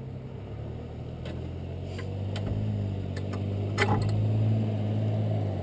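Arctic Cat Wildcat UTV's V-twin engine running steadily at low speed, a little louder through the middle, with a sharp click about four seconds in.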